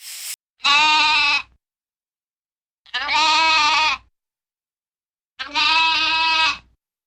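Three bleats from a farm animal, each about a second long with a quavering pitch, separated by short silences; a brief hiss at the very start.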